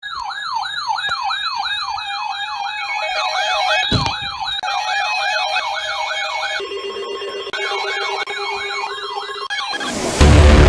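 Several electronic sirens sounding together in a fast yelp, each rising and falling about two to three times a second. About two-thirds of the way through one drops out and a low steady tone comes in. Just before the end a loud, noisy sound starts.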